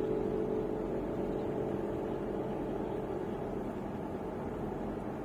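Mitsubishi Pajero Sport on the move, heard from inside the cabin: a steady engine hum and road noise that ease off slightly.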